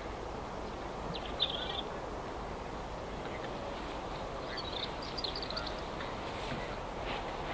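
Dawn lakeside ambience: a steady hum of distant road traffic, with short bursts of high bird chirps about a second in and again around five seconds.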